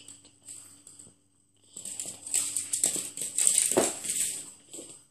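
A chihuahua's claws patter and scrabble on a hardwood floor: a rapid, rustling clatter of clicks that builds about two seconds in and fades just before the end. One sharper knock stands out a little before four seconds in.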